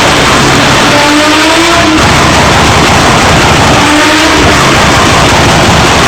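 Turbocharged BMW M3 with anti-lag running very loud, with dense exhaust crackling and popping throughout. The engine revs up twice, about a second in and again about four seconds in.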